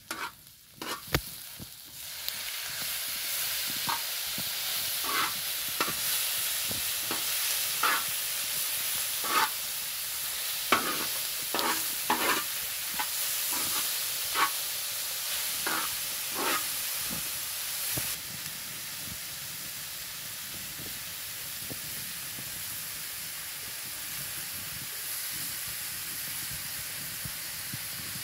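Diced potatoes and tomatoes frying in a large shallow metal pan, a steady sizzle that jumps up about two seconds in as the tomatoes hit the hot pan. A metal spoon scrapes and knocks against the pan in irregular strokes through the first half of the sizzle.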